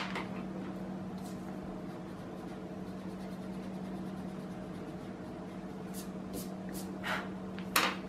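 Steady low electric hum from a household appliance. A few light clicks and taps of pencils handled on a wooden table come in the last two seconds, the loudest just before the end.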